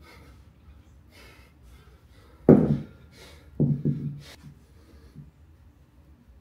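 A 100-pound kettlebell set down on a concrete floor: one heavy thud about two and a half seconds in, then a few smaller knocks about a second later as it rocks and settles.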